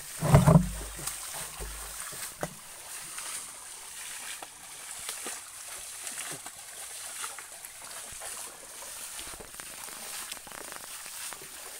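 Pond water sloshing and splashing around people wading and working a drag net, with water thrown up by hand in irregular splashes. A loud thump comes about half a second in.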